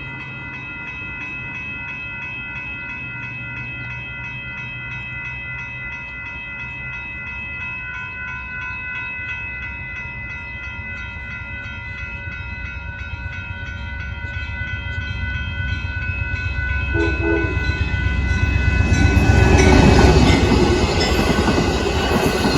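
A railroad grade-crossing bell rings steadily as an Amtrak Texas Eagle passenger train approaches, growing louder from about two-thirds of the way in. A brief horn note sounds near the end, and the rumble of the locomotive passing peaks shortly before the end.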